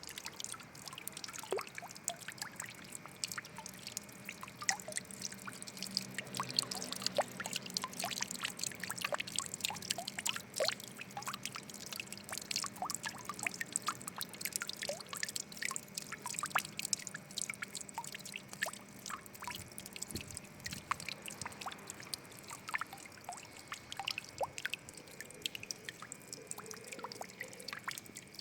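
Water trickling and splashing, with a steady patter of many small drops falling.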